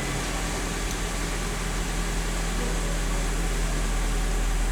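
GM Onix four-cylinder engine idling steadily on a cold start, at a slightly raised warm-up idle; a low, even hum that grows a little louder over the few seconds.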